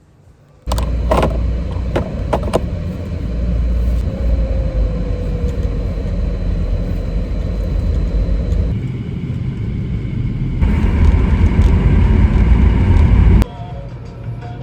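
A car driving, with a steady low rumble of engine and road noise. A few sharp clicks come near the start. The sound changes abruptly a couple of times and drops off sharply near the end.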